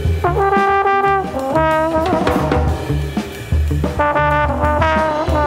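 Trombone playing a short improvised jazz line of held notes joined by slides, over drum kit accompaniment.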